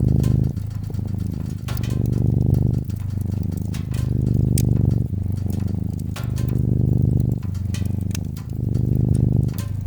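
Orange-and-white cat purring close up, a low rumble with louder and softer phases alternating about every second, over the sharp pops and crackles of a wood fire.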